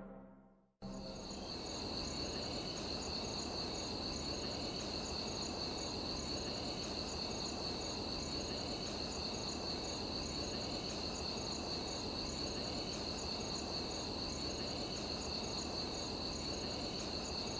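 Crickets chirping steadily in a night ambience: a constant high trill with evenly repeating pulses over a faint hiss. It starts abruptly about a second in, after a moment of silence.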